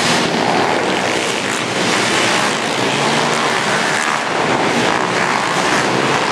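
Several small pit bike engines running hard together in a race, a loud, steady, dense buzz.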